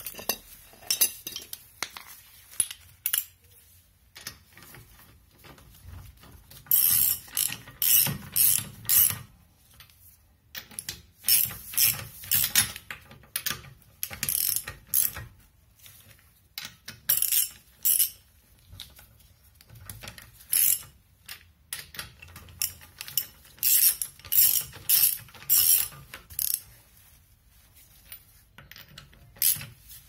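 Hand ratchet and socket clicking in quick bursts of one to two seconds with pauses between, as the nuts of the refitted rear alloy wheel are run up hand-tight before torquing.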